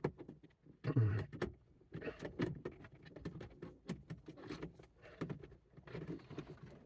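Scattered clicks, taps and rustles of plastic parts being handled as a Mercedes EIS electronic ignition switch module is fitted back into its dashboard opening.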